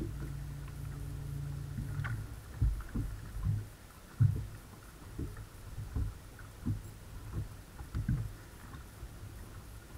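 Bass boat's bow-mounted electric trolling motor humming steadily, stopping about two seconds in, followed by irregular low thumps against the hull.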